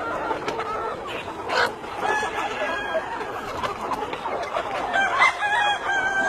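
A flock of chickens clucking, with roosters crowing over them, one long crow at the start and again about five seconds in.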